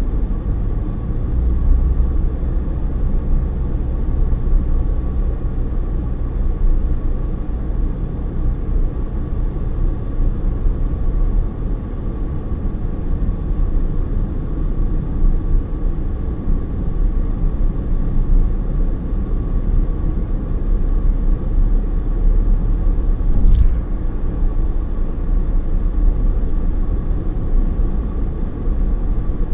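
Steady low rumble of a car driving at road speed, tyre and engine noise heard from inside the cabin. One brief sharp click about three-quarters of the way through.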